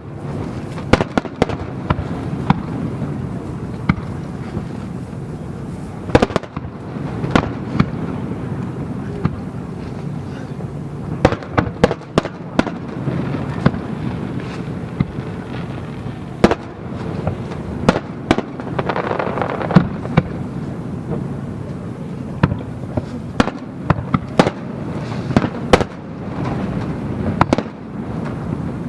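Aerial fireworks shells bursting one after another at irregular intervals, sharp bangs and cracks, some in quick clusters, over a steady rumbling background.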